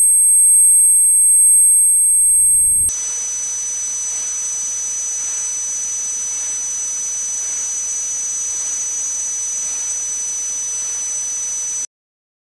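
Synthetic high-pitched ringing of two or three steady pure tones. About three seconds in, after a brief low rumble, the tones drop to a slightly lower set and a hiss joins them. Everything cuts off suddenly near the end.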